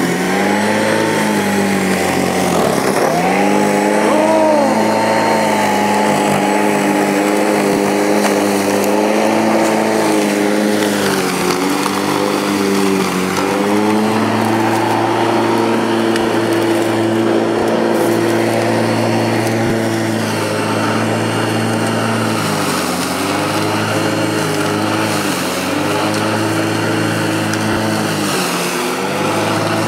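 Ozito 1400 W electric lawn mower running as it cuts long grass. Its pitch sags several times as the blade is loaded by thicker grass, then picks back up.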